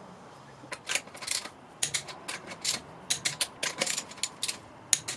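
Ratchet wrench clicking in quick irregular runs as a socket tightens the wheel's lug nuts; the clicks start about a second in.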